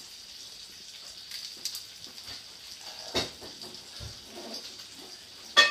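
Quiet kitchen background with a steady faint hiss. A soft tap comes about three seconds in, and a sharp clink with a brief ringing tone comes near the end.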